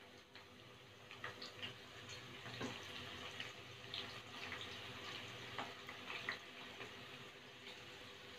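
Sliced onion deep-frying in hot oil: a steady sizzling hiss with scattered crackles and pops.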